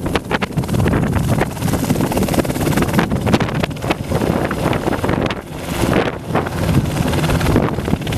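Enstrom 480B helicopter lifting off and hovering low: its turbine engine and main rotor running at take-off power, with wind buffeting the microphone.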